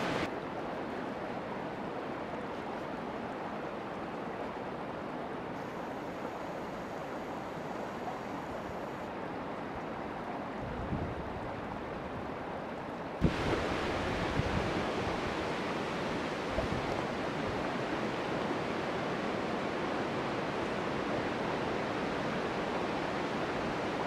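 Steady rushing of a nearby creek's flowing water. About 13 s in there is a single thump, after which the rushing is a little louder.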